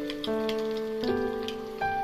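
Instrumental background music: a simple melody of held notes changing about every half second, over a faint, scattered crackle.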